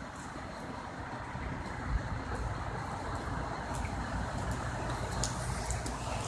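Low, steady rumble of heavy road vehicles, growing louder about two seconds in.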